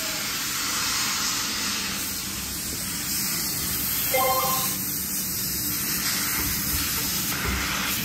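Steady hiss of compressed air, with a short tone about four seconds in.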